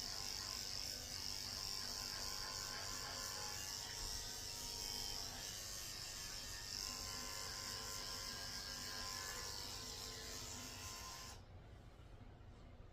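Electric dog grooming clippers running steadily as they shave a matted coat down to the skin. The buzz cuts off about eleven seconds in, leaving a quieter background hum.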